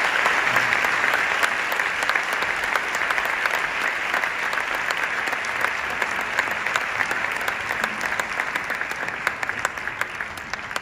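Audience applause, a dense steady patter of many hands clapping that fades slowly over the stretch.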